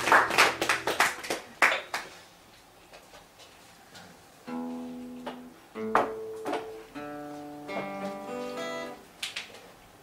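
Acoustic guitar: strummed chords that die away about two seconds in, then after a short pause a few softly picked notes and chords left ringing.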